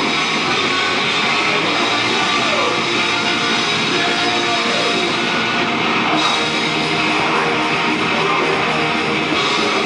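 Live rock band playing loud and steady: electric guitar, electric bass guitar and drum kit together, with a few falling slides in the guitar.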